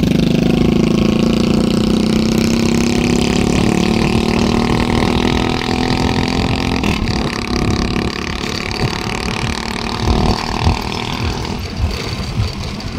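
A motorcycle engine running close by, its pitch rising slowly, fading after about six seconds. Then wind buffets the microphone over road noise from riding on a two-wheeler.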